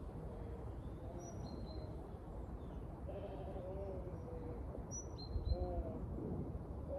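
Zwartbles sheep bleating several times, wavering calls about a second in, a longer run around three to four seconds and another near six seconds. Small birds chirp faintly, and there is a low thump about five and a half seconds in.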